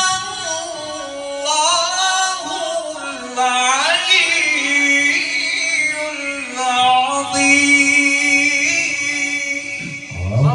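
A man singing a melismatic religious praise chant into a microphone, amplified: long high held notes that bend and waver through ornaments.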